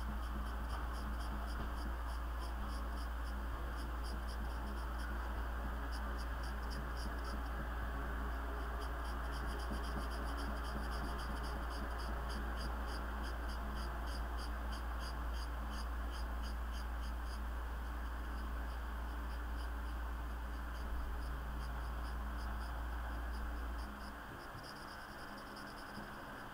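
Black felt-tip marker scribbling on paper, a quick run of short scratchy strokes several times a second, pausing now and then. Under it is a steady low hum that drops away near the end.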